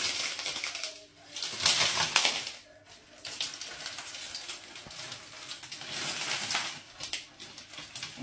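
Fragments of the oven door's shattered tempered glass panel clinking and crackling as the door is eased open, many small tinkles running together, heaviest about two seconds in and again near six seconds.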